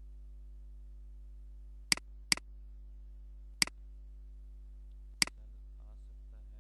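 Computer mouse clicking four times, sharp short clicks each with a faint release tick: two close together about two seconds in, one in the middle and one a little past five seconds, over a steady low electrical hum.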